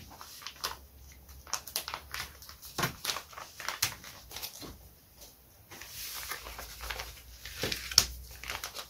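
A clear plastic parts bag crinkling and rustling as it is opened, with scattered light clicks and taps as a small laser-cut plywood sheet and plastic parts are taken out; a sharper tap about eight seconds in as the sheet is set down on the table.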